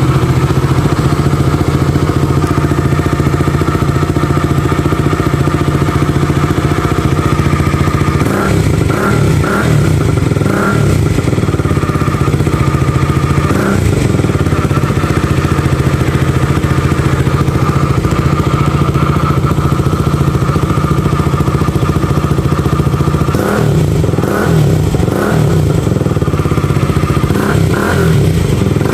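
KTM RC 200's single-cylinder engine idling through an aftermarket Yoshimura Alpha-style slip-on exhaust with a mid-pipe resonator, given a run of quick throttle blips about eight seconds in and again near the end.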